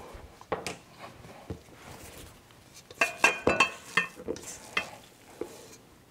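Spatula scraping and knocking against a stainless steel mixing bowl while cookie dough is worked and scooped out, with a cluster of sharper knocks about three to four seconds in where the bowl rings briefly.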